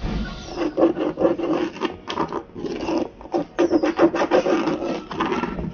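Scratching and rubbing against coarse 36-grit sandpaper, in many short, irregular strokes.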